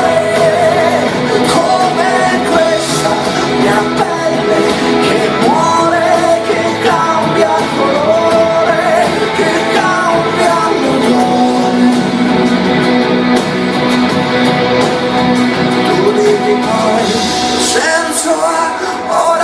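Pop-rock song playing loud, a singing voice holding long, bending notes over the band.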